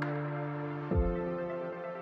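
Background music: soft, sustained ambient synth chords, changing to a new chord with a low bass note just under a second in.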